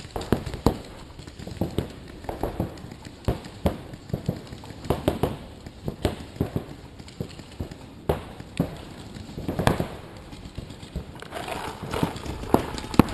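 Scattered paintball fire: irregular sharp pops and knocks, a few each second, some louder and some fainter.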